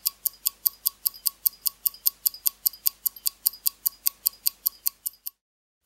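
Sportivnye 1MChZ mechanical wristwatch ticking, the escapement giving about five sharp, even ticks a second. The ticking cuts off suddenly near the end.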